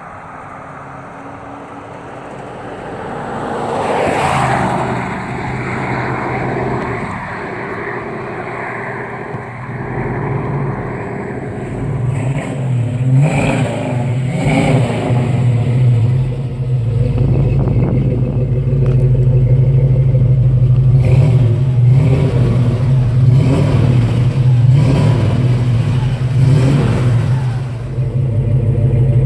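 1970 Ford Torino GT's 351 Cleveland four-barrel V8 driving past, its sound swelling and fading about four seconds in. Then, close to the tailpipes, the engine runs steadily with a series of short throttle blips.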